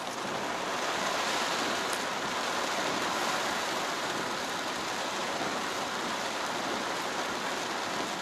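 Steady rain falling on a car's roof and windshield, heard from inside the car.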